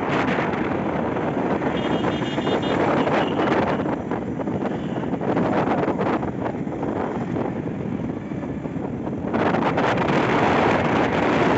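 Wind buffeting the microphone of a camera carried in the open through road traffic, over the noise of passing vehicles; the wind grows louder about nine seconds in. A faint run of short high beeps sounds about two seconds in.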